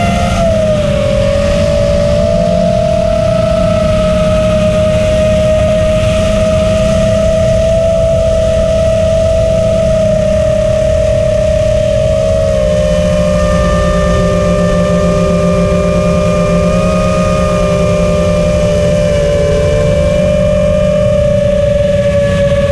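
Quadcopter's four brushless motors (T-Motor F40 Pro II, 1600 kV) spinning 6-inch three-blade props in flight: a steady whine that wavers a little in pitch and splits into several close pitches for a few seconds past the middle, over a low rushing noise.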